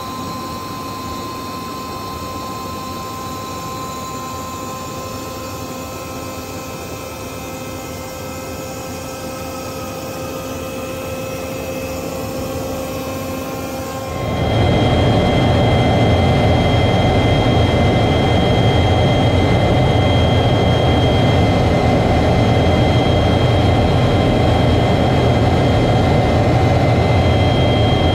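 Jet engine and airflow noise in flight: a steady rush with several held whining tones. About halfway through it jumps to a louder, deeper cockpit roar with two high steady tones, heard from inside the chase jet's canopy.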